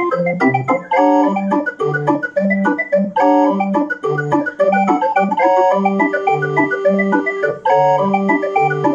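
Electronic barrel organ (orgue de Barbarie) playing a tune from a punched cardboard book read by an optical reader, with organ-like voices. A bouncing bass alternates between two low notes about twice a second under a lively melody full of quickly repeated notes.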